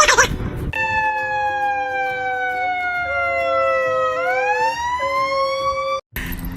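A long, loud wailing tone with a clean, pure pitch. It falls slowly, turns and rises again about four seconds in, over a second, steadier tone that breaks off and resumes. The wail cuts off suddenly near the end.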